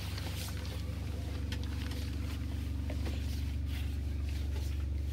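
A sailboat's inboard diesel engine running at a steady speed, heard as an even low drone inside the cabin while the boat motors. A few light clicks from galley work sound over it.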